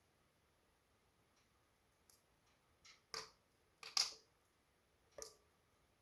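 Wood fire in a fireplace crackling, with about six sharp pops and snaps over a faint background; the first two seconds are nearly still and the loudest pop comes about four seconds in.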